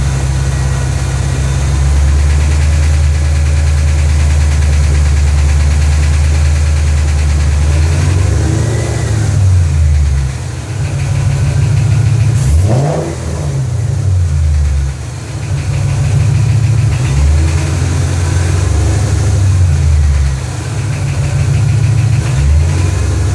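Ford Shelby GT500's V8 engine idling steadily, then revved up and let back down several times from about eight seconds in. The engine makes a ticking noise that shows up at normal operating temperature.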